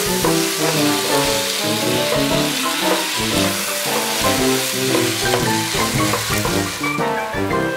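Tomato sauce, sausage and vegetables sizzling in a frying pan while a wooden spoon stirs them, with background music throughout. The sizzling drops away near the end.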